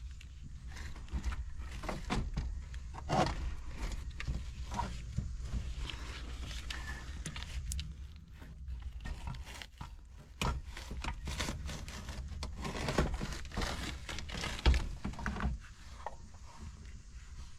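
Hands working on a Ford engine's intake: irregular knocks, clunks and rustling as parts are handled and pulled at, over a low steady rumble.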